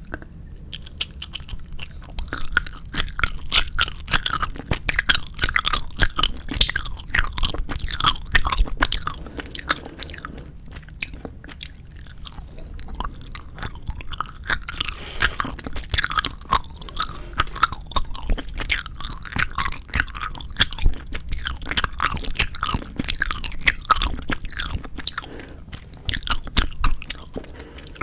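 Close-miked chewing and biting of 4D gummy jelly candy: dense, irregular wet squelches and clicks of teeth working through chewy jelly.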